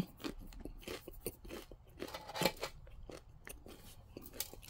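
Soft pretzel being picked up and pulled apart by hand: a run of small, irregular crackles and soft crunches from the crust as it tears.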